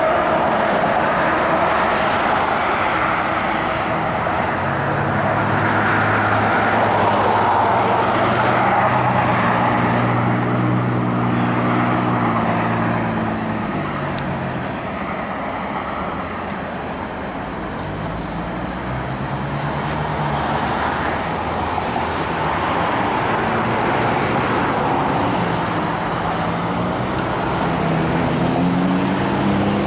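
Road traffic passing through an intersection: steady tyre noise with the hum of vehicle engines that rises and fades several times as cars and trucks go by.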